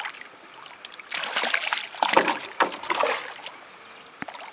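Golden dorado thrashing and splashing at the water surface in several short bursts, the loudest about two seconds in, as it is released from a lip grip at the boat's side.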